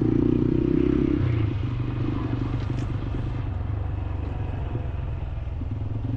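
Motorcycle engine running while being ridden. About a second in its note drops and gets a little quieter, then it runs on as a steady lower rumble.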